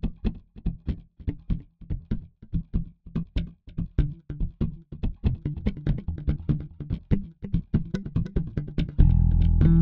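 Background music: short, separate notes in a quick steady pulse, then a fuller band with bass and guitar comes in about nine seconds in and the music gets louder.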